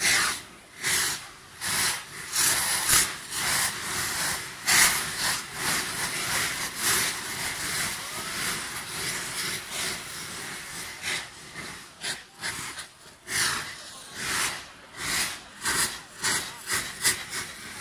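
Saites, hand-held cardboard tubes packed with gunpowder, firing one after another. Each lets out a rushing hiss of a second or less as it sprays sparks, the hisses overlapping, with a quicker run of short ones near the end.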